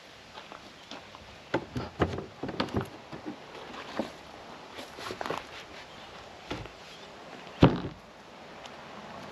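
Wooden knocks and footsteps on gravel as the lid of a wooden generator box is handled and lifted off, with a cluster of knocks in the first few seconds and one loud thump near the end as the lid is set down.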